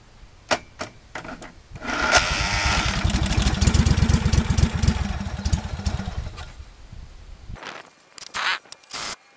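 A few clicks, then the old Craftsman garden tractor's engine turning over on its starter, a fast steady pulsing for about five seconds that fades as it slows. The engine has sat unused for about eight years.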